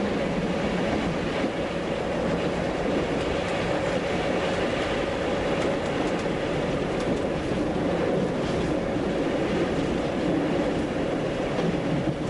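SNCF X4200 panoramic diesel-electric railcar running along the line, heard from inside the cab: a steady, even mix of engine and wheel-on-rail noise with a constant hum.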